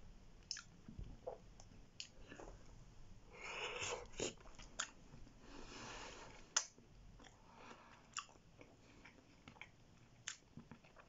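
A man chewing a mouthful of food with his mouth closed: soft wet smacks and clicks scattered throughout, and two brief louder rushes of noise around the middle.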